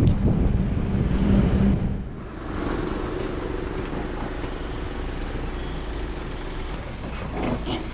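Tractor engine running steadily as it pulls a trailer loaded with wood, with wind buffeting the microphone for the first two seconds. A few sharp knocks near the end.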